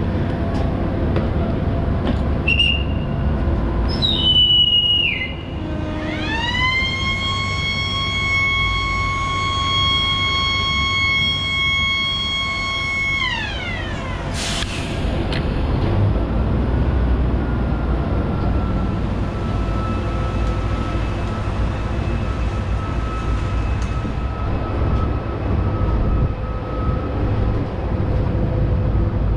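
A commuter train being sent off: a conductor's whistle about three seconds in, then the train's horn sounding one long note for about seven seconds, rising at the start and sagging at the end. A knock follows, then the steady rumble of the train pulling out, with a faint whine that fades near the end.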